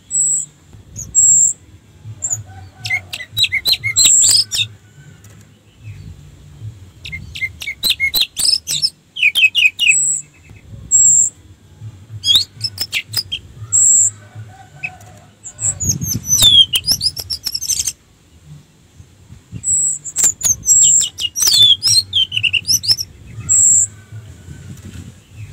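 Orange-headed thrush singing: short, high single notes repeated at intervals, broken by about five bursts of fast, varied twittering phrases.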